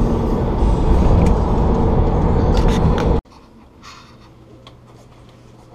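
Road and engine noise inside a moving car's cabin, a loud low rumble. About three seconds in it cuts off abruptly to a quiet room with a faint, steady low hum.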